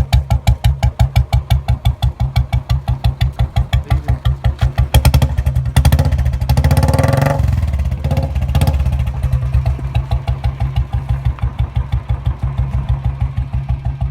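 Royal Enfield Bullet Electra 350's single-cylinder engine idling through a mini Punjab silencer, with slow, evenly spaced exhaust thumps. About five seconds in, the throttle is blipped, revving the engine up for a couple of seconds, then once more briefly, before it settles back to idle.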